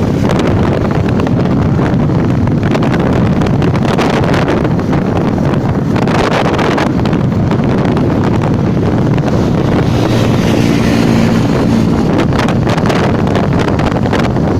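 Heavy wind buffeting the microphone over a steady low rumble, with a faint engine hum showing through about ten seconds in.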